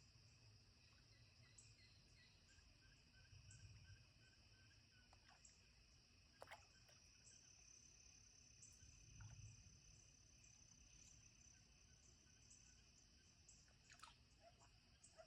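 Faint evening pond ambience: crickets or other insects trilling steadily in high continuous tones. A run of short, evenly spaced chirps comes in the first few seconds, and a few brief sharp calls break in about six and fourteen seconds in.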